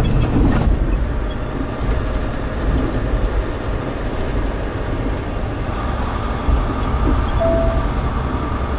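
Semi-truck engine and tyre noise heard inside the cab while driving slowly down a street, a steady low rumble. A short beep sounds about seven and a half seconds in.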